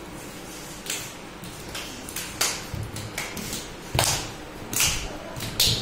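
Hand claps: about six sharp single claps at an uneven pace, roughly one a second, as in gidda clapping.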